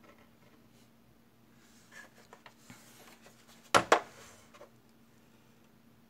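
Hands handling a plastic scale model airplane and a metal pin vise on a tabletop: faint scratching and small ticks, then two sharp knocks close together about four seconds in.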